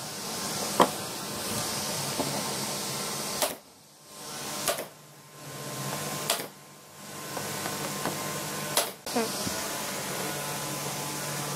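Pneumatic brad nailer firing about five times, each a sharp shot a second or more apart, over a steady low hum.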